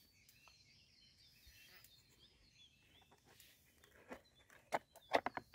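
Faint birds chirping, then a few sharp clicks about four to five seconds in as the green plastic lid of a Slug X slug trap is handled and unclipped.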